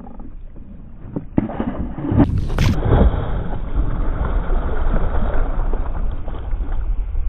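Water splashing at the surface beside a kayak: a fish thrashing, with a sudden loud splash about two seconds in and then a steady rush of churning water.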